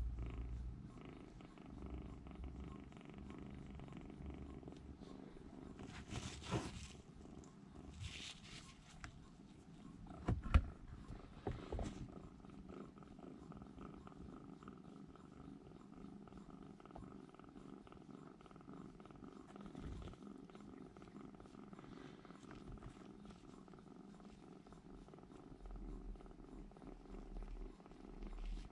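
A young kitten purring steadily while a finger strokes its chin. A few sharp clicks cut through, the loudest about ten seconds in.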